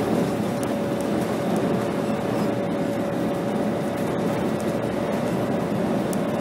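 Scania K270 city bus cruising at motorway speed: steady engine and road noise heard from inside at the windscreen, with a constant whine held throughout and a few faint ticks of rattle.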